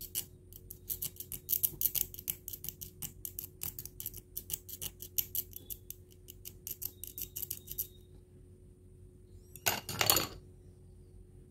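Rapid scratchy clicking of a fine metal pick scraping and picking at the heating-element terminal on a soldering iron's control circuit board, for about eight seconds. A brief, louder scrape comes about ten seconds in.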